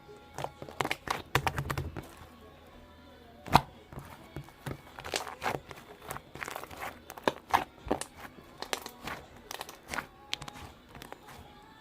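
Gold pearl slime being squeezed and stretched by hand, giving irregular sticky clicks and pops in quick clusters, with one sharper pop a little over three seconds in.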